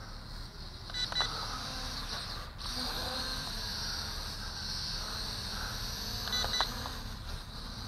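Lishitoys L6056 micro quadcopter flying, its small motors giving a faint steady high whine, with two short electronic beeps about a second in and again near the end.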